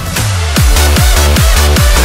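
Electronic dance music: a falling sweep leads into a drop about half a second in, then a heavy, steady kick-drum beat with deep bass.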